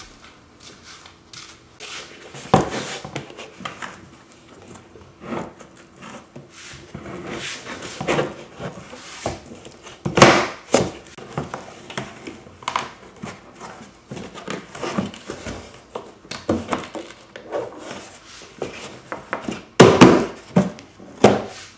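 Irregular hard-plastic clicks, taps and knocks as a hand grips and shakes a plastic cooler strapped down with bungee cords on a sit-on-top kayak. The loudest knocks come about ten seconds in and twice near the end.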